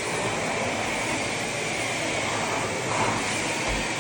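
Eureka bagless canister vacuum cleaner running steadily on its high setting while sucking up dog hair: a steady rush of air with a high whine.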